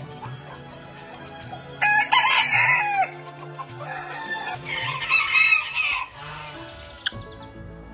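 Rooster crowing twice: a loud crow about two seconds in and a second, fainter crow around five seconds, over soft background music.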